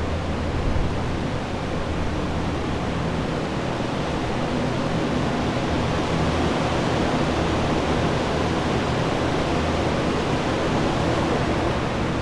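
Water-damage drying equipment running together: many floor air movers and a dehumidifier give a steady rush of blown air with a low motor hum, the sound of a flooded building being dried out.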